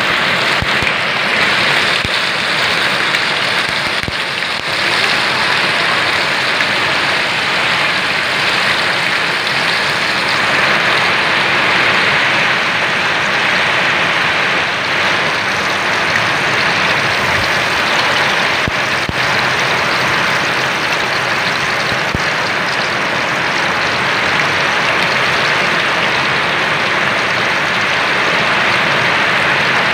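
Moonfish shallow-frying in oil in a metal wok: a loud, steady sizzle with a few brief clicks.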